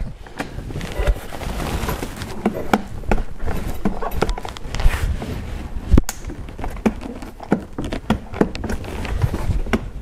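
Irregular plastic clicks, knocks and rustling as a car's rear door trim panel and its window switch are handled and pushed from the back of the panel, with the sharpest knocks about five and six seconds in.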